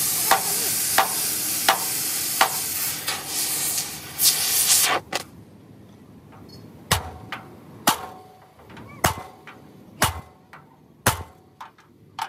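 Hammer blows on metal, steady at roughly one or two a second, with a loud steady hiss over them for the first five seconds. The hiss stops suddenly, and the later strikes ring out clearly.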